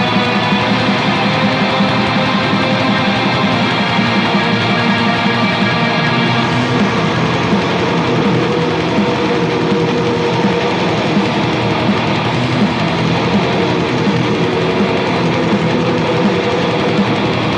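Atmospheric black metal: a loud, dense, unbroken wall of distorted guitars. A high held layer drops out about six seconds in.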